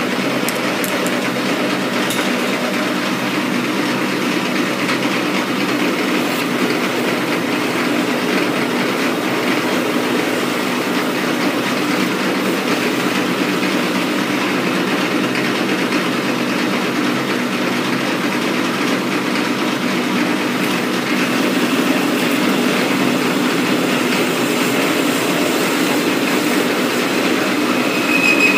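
Metal lathe running steadily while the tool takes a turning cut along a steel shaft for R8 tooling, under flood coolant. It gets a little louder in the last several seconds.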